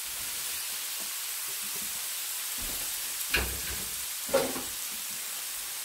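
Chopped onion, garlic and diced tomato frying in olive oil in a frying pan: a steady sizzle, with two short knocks a little past the middle.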